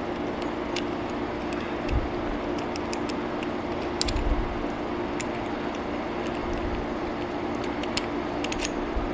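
Light clicks and taps of a small brass cylinder and aluminium block being handled and pulled apart by hand, with a couple of soft thumps, over a steady low hum.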